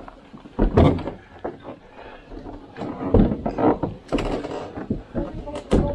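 A few loud knocks and scrapes, with rough rustling between them, as a lightweight carbon/kevlar solo canoe is handled past boulders on a rocky trail.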